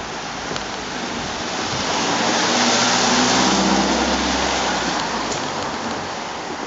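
A car passing close by on a wet road: tyre hiss swells to a peak about halfway through and then fades, with a low engine hum under it.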